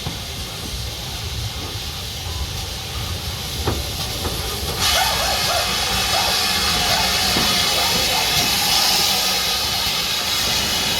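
Steam locomotive with a low rumble and a couple of knocks, then about five seconds in a sudden loud hiss of escaping steam that goes on steadily.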